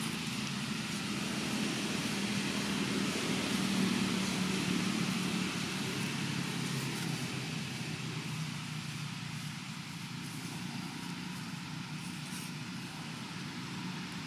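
Steady low rumble of distant engine traffic with outdoor ambience, swelling a little a few seconds in and easing off in the second half.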